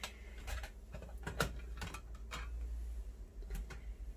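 Light metallic clinks and rattles, several scattered short knocks, as the stainless-steel panels and top grill of a folding twig-burning firebox stove are handled and lifted apart.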